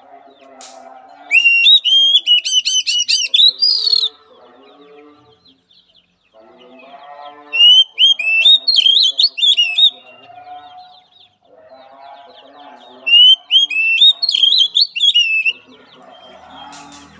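Oriental magpie-robin singing three loud bursts of rapid, varied whistled phrases, each two to three seconds long, with pauses between them.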